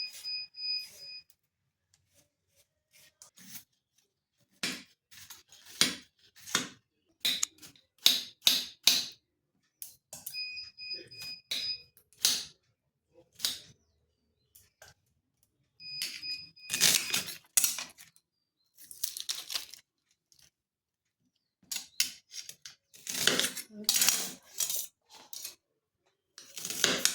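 Kitchen utensils clattering and clinking in short spells, spoon and bowl sounds of preparing peanut chaat. A short run of electronic beeps sounds three times: at the start, about ten seconds in and about sixteen seconds in.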